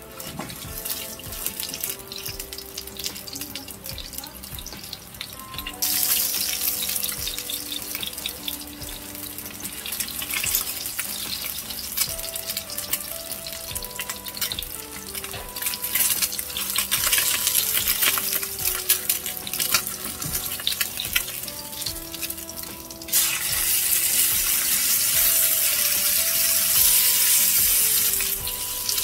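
Pork neck steak sizzling and crackling as it fries in oil in a nonstick frying pan. The sizzle grows louder about six seconds in and again a little past twenty seconds in.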